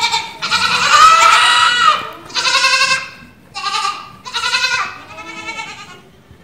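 Saanen dairy goats bleating: about five calls in a row, the first the longest and the last fainter.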